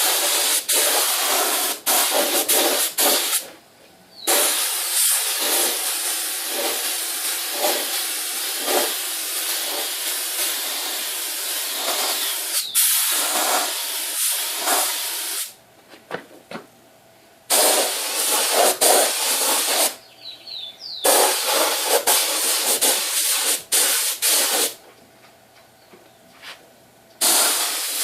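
Compressed-air paint spray gun hissing in on-off bursts as the trigger is pulled and released: a long spray of about eleven seconds, then several shorter ones with brief pauses between.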